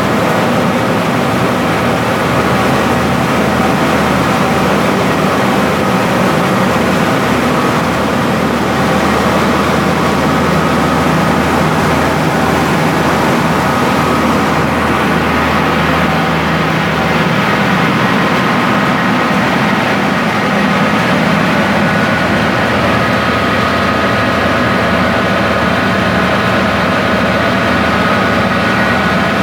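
Rice milling machine running steadily: a loud, constant mechanical drone with a low hum and several steady high whining tones.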